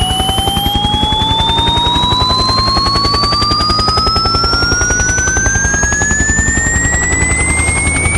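Speaker burn-in test signal: a sine sweep of several pure tones gliding steadily upward in pitch together, layered over a helicopter sound effect with rapid, even rotor chop and a low rumble that thickens in the last couple of seconds.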